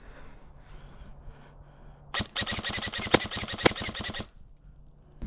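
Airsoft gun firing a rapid full-auto burst about two seconds long, starting about two seconds in, with two louder cracks in the middle of it.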